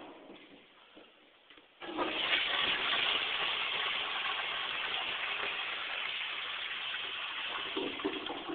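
Original 1915 toilet flushing. A sudden rush of water starts about two seconds in and runs steadily for about six seconds, easing off near the end. The old fixture is still in working order.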